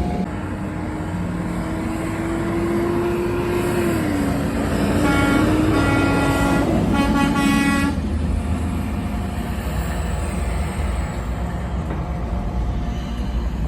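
Semi-truck air horn held in one long blast that drops in pitch about four seconds in as the truck goes by, followed by a few short chord-like air horn blasts. Under it all runs the steady rumble of passing trucks' engines and tyres.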